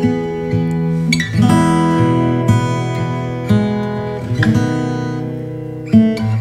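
Background music: an acoustic guitar playing plucked chords, with a new chord about every second.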